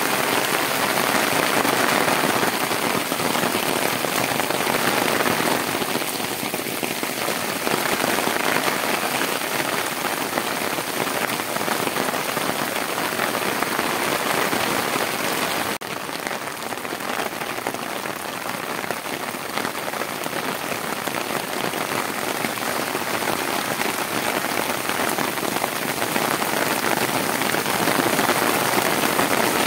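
Heavy storm rain pouring onto a street, a dense, steady hiss. About halfway through it turns abruptly a little softer, then swells again toward the end.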